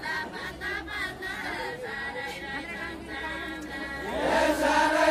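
A group of voices singing a deuda folk song together, with the chorus swelling louder about four seconds in.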